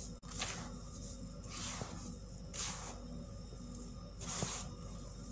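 Hands crumbling pressed, coloured baking soda and letting the powder sift through the fingers: four soft hissing pours, each under half a second, about a second apart.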